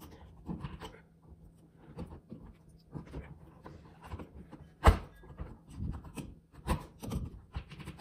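Pliers working stiff copper house wiring back into a wall switch box: scattered scrapes and clicks, with one sharp knock about five seconds in.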